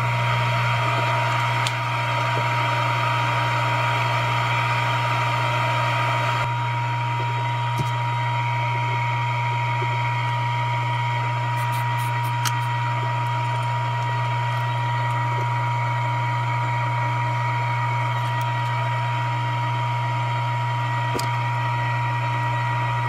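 Steady machine hum from the soldering bench equipment, a board preheater's fan and a soldering station running, with a thin high whine above it. The sound drops slightly about six seconds in.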